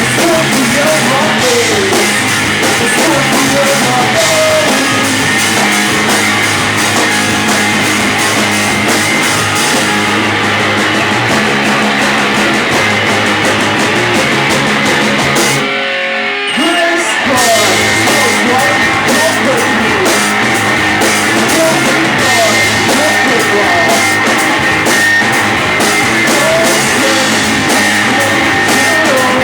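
Loud rock music with electric guitar, drums and singing, with a short break about halfway through.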